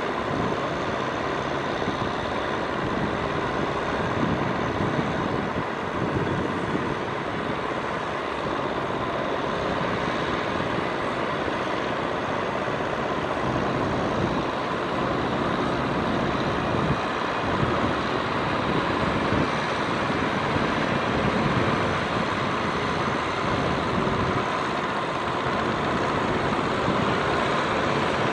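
Kubota M6040SU tractor's four-cylinder diesel engine running steadily under load as it pulls a cultivator through deep mud and water.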